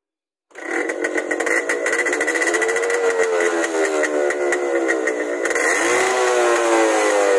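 Yamaha RX 100's two-stroke single-cylinder engine running through its silencer with a full new aftermarket baffle insert (muffler jali) fitted. It comes in suddenly about half a second in and is revved, the pitch rising and falling a few times.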